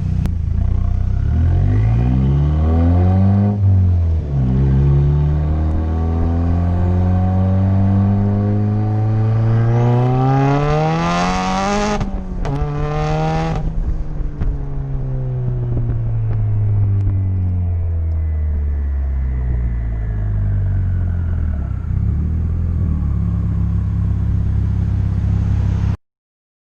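Mazdaspeed3's turbocharged 2.3-litre four-cylinder, with a big BNR S4 turbo, external wastegate and muffler-deleted exhaust, accelerating hard. The revs climb, drop briefly at a gear change about four seconds in, then climb again to a peak. About twelve seconds in the revs cut off sharply with a short blip, then wind steadily down as the car slows.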